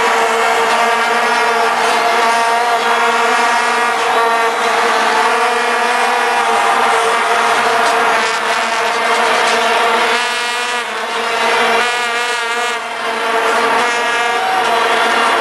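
Stadium crowd blowing vuvuzelas: a loud, steady buzzing drone of many plastic horns sounding on roughly one pitch. It dips slightly in level a couple of times near the end.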